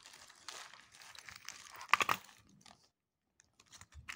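Small plastic zip-lock bags full of coins crinkling and rustling as they are handled, with one sharp clack about two seconds in, then a short lull with a few light ticks.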